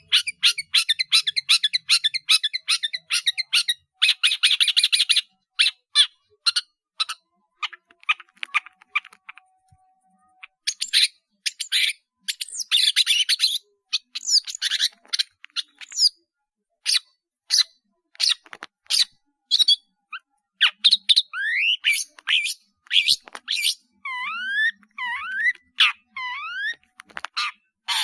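Long-tailed shrike (cendet) in full song, packed with mimicked phrases. It runs through rapid chattering trills, a dense buzzing trill about four seconds in, sharp scattered call notes, and quick rising whistled notes near the end.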